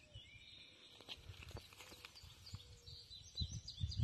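Faint small-bird chirps, short and falling in pitch, over scattered low bumps and rumbles that grow louder near the end.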